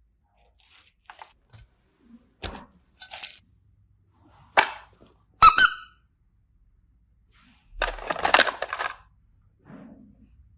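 Glitter slime being worked by hand: scattered sticky squelches and sharp pops, the loudest pops a little past halfway, then a denser crackling stretch lasting about a second near the end.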